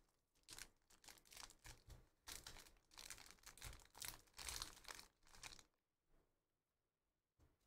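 Faint crinkling and rustling of the clear plastic sleeves and wrapping around trading cards as they are handled, in short irregular bursts that stop about two seconds before the end.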